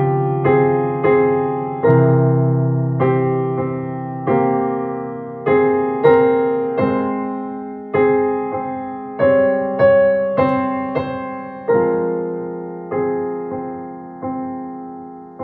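Digital piano playing a slow piece: chords struck about once a second, each dying away before the next.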